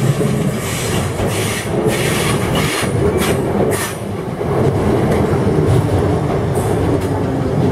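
ScotRail electric multiple unit running alongside the platform with a steady low rumble. A run of brief sharp sounds comes in the first four seconds.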